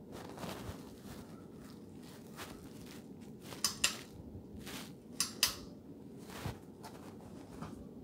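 Ceiling fan pull-chain switch clicking as the chain is pulled to change the fan's speed: two pulls, each a quick sharp double click, a few seconds in and again about a second and a half later. The running hugger ceiling fan makes a steady low noise underneath.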